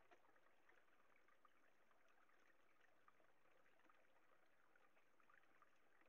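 Faint, steady trickle of a small stream, with a few light clicks.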